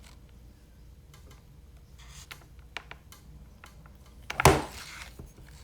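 Handling noises: a few faint clicks and rubs, then one brief, louder clatter about four and a half seconds in.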